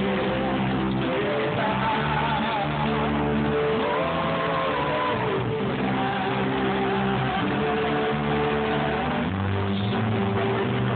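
A slow church worship song: held instrumental chords under voices singing a drawn-out melody.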